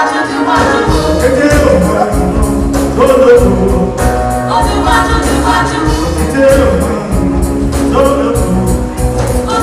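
Live band music with a steady beat and singing.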